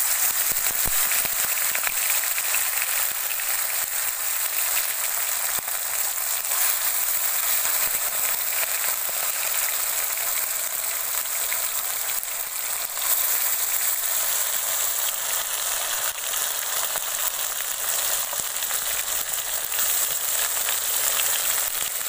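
Spice-coated whole bata fish frying in hot oil in a kadai: a steady sizzle full of fine crackling. The fish are laid into the oil one by one.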